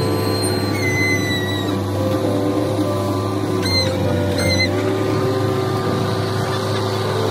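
Backhoe loader's diesel engine running steadily under load as the bucket digs and dumps soil, with a few short high whistling tones over it.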